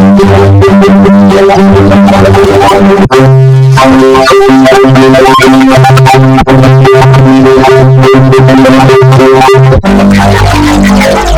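A sneeze sample run through vocoder effects into loud, distorted, synth-like chords that step from note to note, with short breaks about every three seconds.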